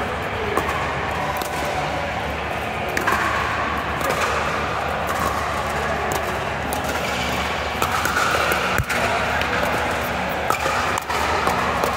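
Pickleball paddles striking the ball, a string of irregular sharp pops and clacks, over a steady background din of voices and court noise.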